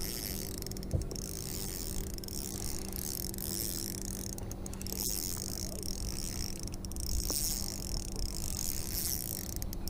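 Spinning reel being cranked while a hooked fish is reeled in, a steady mechanical whirr of the reel's gears with a few faint ticks.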